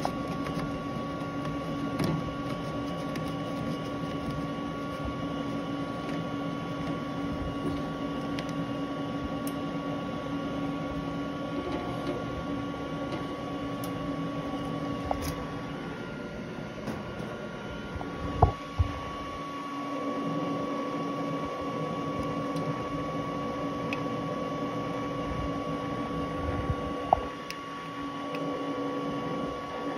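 Omniprint DTF printer humming steadily while powered on, a constant mix of several even tones. A few sharp knocks and clicks break in, the loudest two about two-thirds of the way through and near the end, as its capping station is wiped and swabbed by hand.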